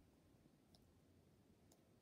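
Near silence, broken by two faint, short clicks about a second apart.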